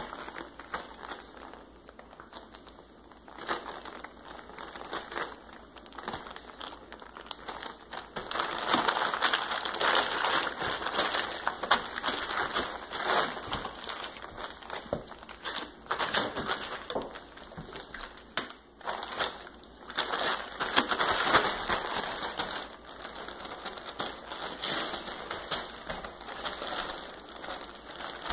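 Plastic tarp crinkling and crackling under two puppies as they wrestle and roll on it, coming and going with their scuffling, loudest in two stretches about a third and three quarters of the way through.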